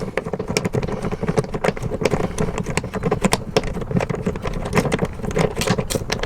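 Socket ratchet clicking rapidly and irregularly as a bolt is run back into a body hole, closing it against water coming in from below.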